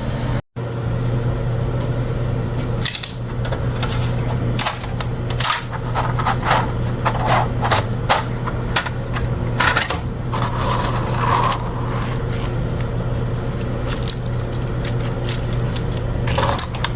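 Repeated clicks, taps and short scrapes of small hard objects being handled, over a steady fan-like hum.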